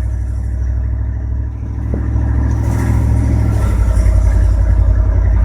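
A 1994 GMC Sierra 3500's 5.7-litre V8 running as the truck drives, its automatic transmission not shifting up past the low gears. The engine note dips briefly about one and a half seconds in, then grows stronger and more pulsing a little past halfway.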